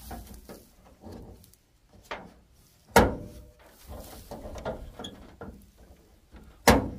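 Hood latch of a 1980s Chevy K30 truck clicking and rattling as it is worked by hand, with two loud bangs of the hood, about three seconds in and near the end: the latch is sticking and won't release.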